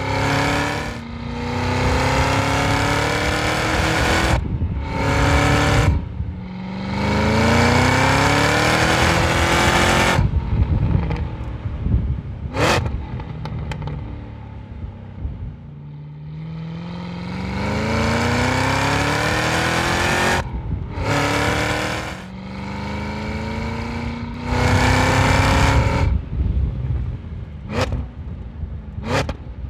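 Cadillac CT5-V Blackwing's supercharged 6.2-liter V-8 exhaust under hard acceleration: several pulls, each rising in pitch and stepping through upshifts, with quieter stretches between them and a few sharp cracks.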